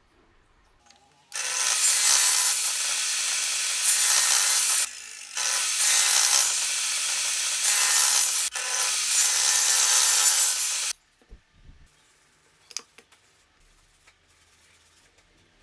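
Electric power tool working on wood, running steadily in three stretches with two short breaks, then stopping about eleven seconds in; a few faint clicks follow.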